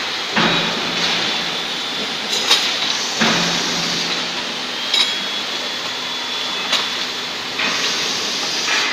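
WDDM ZS4116D bench drill-tapping machine running: a steady whirring hiss with a few sharp clicks.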